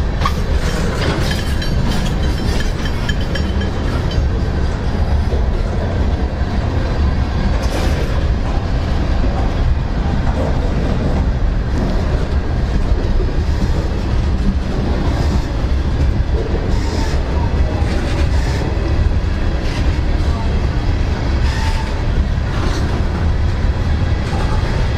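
CSX freight train cars rolling past: a steady loud rumble of steel wheels on rail, with sharp clacks scattered through it.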